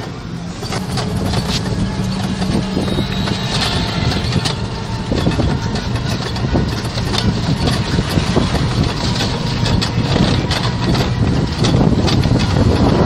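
Auto-rickshaw engine running as it drives along the road, with steady road and wind noise and frequent small rattles of the open body, heard from the passenger seat.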